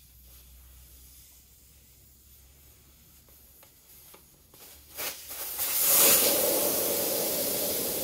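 Air rushing out of a motorcycle's knobby rear tire through its open valve stem as the tire deflates: a few faint clicks, then a loud steady hiss starting about five seconds in.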